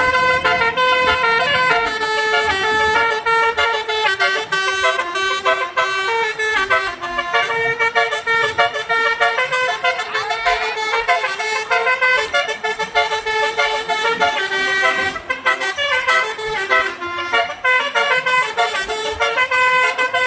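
Multi-tone "telolet" bus horn (basuri) playing a song melody, its notes stepping from pitch to pitch without a break.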